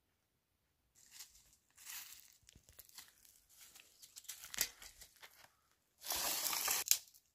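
Dry twigs and leaf litter crunching and rustling as dry sticks are gathered by hand from the ground, with a few sharp snaps. About six seconds in there is a louder tearing rustle lasting nearly a second.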